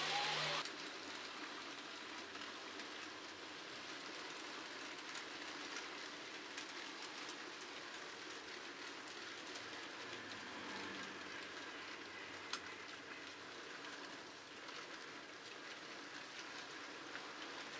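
Model railway goods train rolling past on the layout track: a steady, fairly quiet hiss of wheels on rail with occasional light clicks. A louder sound cuts off about half a second in.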